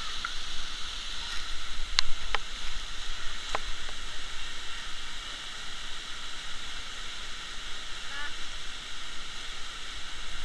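Steady rushing of a waterfall and canyon river, an even hiss over a low rumble, with a few sharp clicks between about two and three and a half seconds in.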